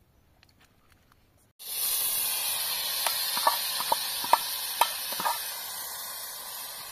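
Near silence, then about a second and a half in a loud sizzle starts abruptly, with a few sharp pops and crackles: food frying in hot oil in a pan.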